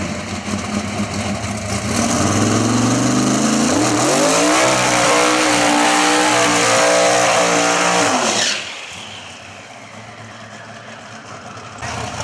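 Drag racing cars running a pass at full throttle: the engines climb in pitch off the line and hold a loud high note, then the sound drops off sharply about eight seconds in, leaving a quieter rumble.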